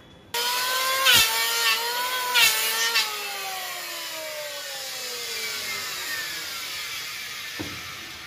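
Electric hand planer switched on and cutting into a wooden window frame, with two short louder bites into the wood about a second and two and a half seconds in. It is then switched off and winds down with a slowly falling whine.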